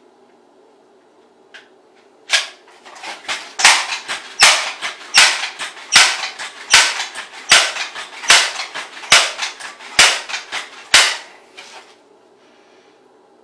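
Pellet gun firing a quick string of about a dozen shots, roughly one every 0.8 seconds, with fainter cracks between them, starting about two seconds in and stopping about eleven seconds in. A steady low hum runs underneath.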